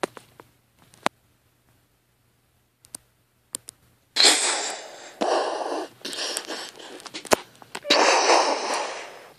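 A child's mouth sound effects for a toy car crash: two long breathy, hissing crash noises, the first starting about four seconds in, after a few light clicks of toy bricks.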